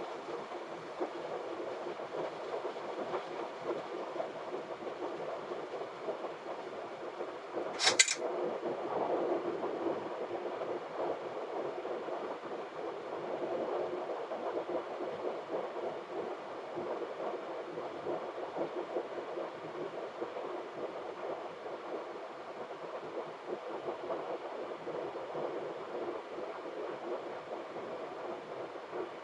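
Steady rush of airflow and ventilation noise in a Boeing 737 flight deck on final approach, with a single sharp click about eight seconds in.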